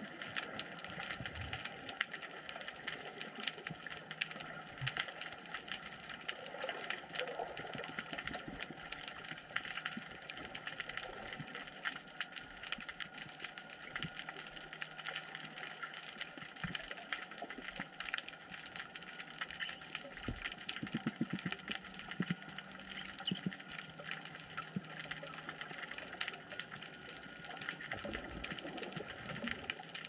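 Underwater ocean ambience: a steady, dense crackle of fine clicks over a soft hiss, with a faint low hum and a short low buzz about two-thirds of the way through.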